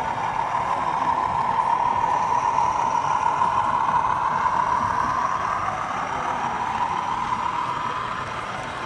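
Sound-fitted model diesel locomotive running, its engine sound coming through the model's small on-board speaker as a steady buzzy note that swells towards the middle and then eases off.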